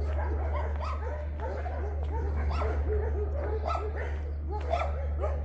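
Several dogs barking and yelping at once, a run of short overlapping calls, over a steady low hum.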